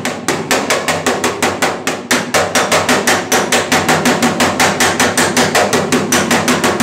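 Air hammer, turned down to about 40 psi, driving a slapping spoon against the steel rear quarter panel of a 1968 Mustang fastback. It makes rapid, even raps, about six a second, with a short pause about two seconds in, as it lightly planishes out a rough spot while a dolly pushes out from behind.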